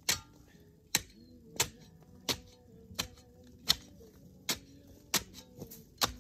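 Repeated sharp strikes of a long-handled tool chopping into overgrown bush and earth at the foot of an old stone wall, about nine blows in an even rhythm, roughly one every 0.7 seconds.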